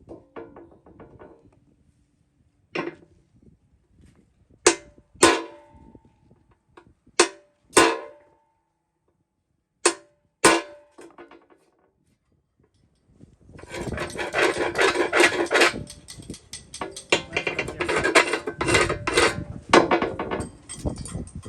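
Heavy blows on a steel wheel rim, each ringing afterwards, mostly in pairs about half a second apart. In the last third they give way to a dense run of rapid metallic clatter.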